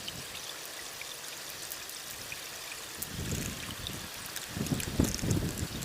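Water trickling and pouring over a steady hiss, with louder, irregular low sounds from about three seconds in and a sharp knock about five seconds in.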